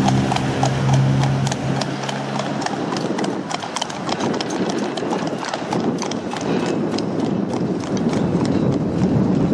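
A double-deck Blackpool Balloon tram passing close by. Its low hum fades out about two seconds in, over a steady run of sharp clip-clop knocks that carry on throughout.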